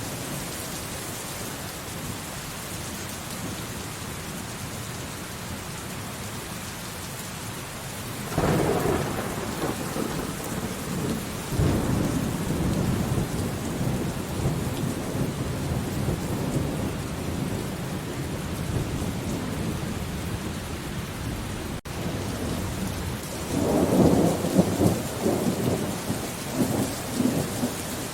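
Steady rain falling, with thunder rumbling twice: a long roll starting about a third of the way in, and a second crackling peal near the end. The audio drops out for a split second midway.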